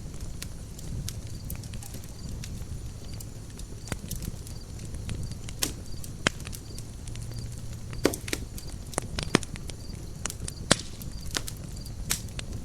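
Campfire crackling: irregular sharp pops and snaps of burning wood over a low steady rumble of the fire.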